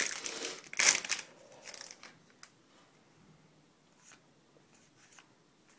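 Foil wrapper of a Yu-Gi-Oh booster pack being torn open and crinkled, loudest in the first second, followed by a few short rustles and faint scattered ticks as the cards are handled.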